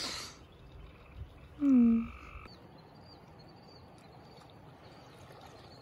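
A frog croaks once about two seconds in, a short call that drops a little in pitch. After that, only faint high chirps over a quiet outdoor background.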